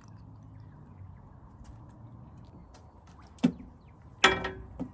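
Two sharp knocks of a hard object about three-quarters of a second apart, the second louder with a brief ring, then a faint click.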